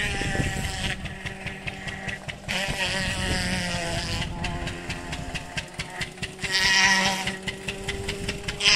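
Steady hum of the engine of an agave fibre-extraction machine running at a constant speed, with short high-pitched cries about three seconds in and again near seven seconds.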